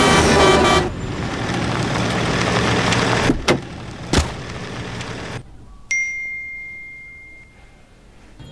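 Truck running on a highway, a steady engine and road noise with a low hum, with two sharp knocks about three and a half and four seconds in. Then the noise drops away and a single clear ding rings out and fades over about a second and a half.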